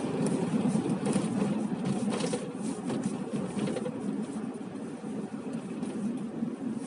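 Car on the move, heard from inside the cabin: a steady low rumble of road and engine noise that grows somewhat quieter after about four seconds.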